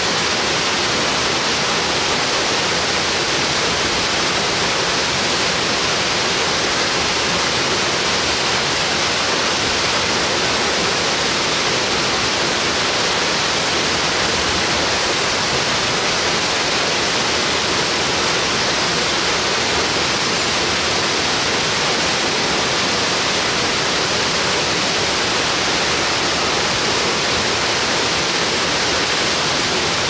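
Bandokoro Falls, a 40-metre straight-drop waterfall, pouring down: a loud, steady rush of falling water that never changes in level.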